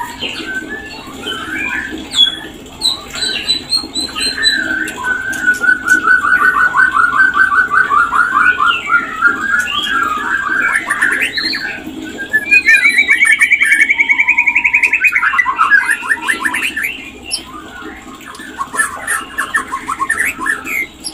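White-rumped shama (murai batu) singing its breeding-season song, a varied run of short whistles and chirps. Two long rapid trills stand out: one about six seconds in, then a higher one about twelve seconds in.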